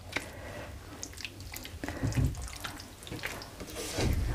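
Chicken and mushroom pieces being stirred through a runny cheese white sauce in a pot: wet squelching and sloshing with soft clicks and taps of the utensil. There are a couple of low thumps, about two seconds in and near the end.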